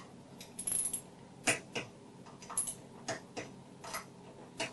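Sharp metallic clicks and clinks from a click-type torque wrench and socket tightening a scooter's cylinder head nuts. There are about ten irregular clicks, a brief jingle just under a second in, and the loudest click about a second and a half in.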